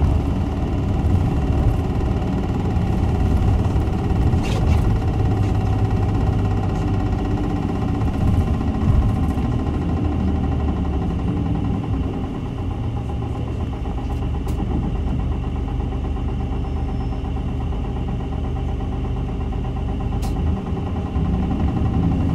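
Interior ride sound of a Nissan Diesel Space Runner RA city bus: the diesel engine running steadily under way, with a low drone and road noise. The engine note eases to a slightly quieter level about halfway through.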